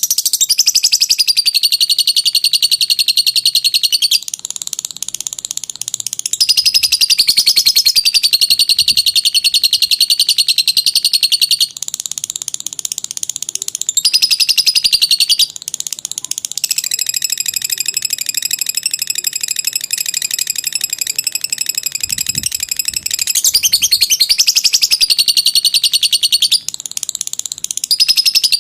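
Lovebird in long 'ngekek' chatter: a high, rapid, buzzy trill held for several seconds at a time. The phrases shift a little in pitch and loudness from one to the next, with barely a break between them.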